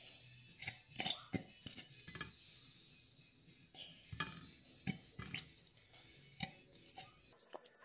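Scattered light clicks and knocks of a plastic glue squeeze bottle tapping against the rim of a clear container as it is squeezed out.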